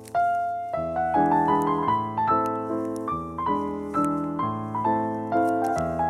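Background piano music: a steady run of notes and chords, each struck and fading away.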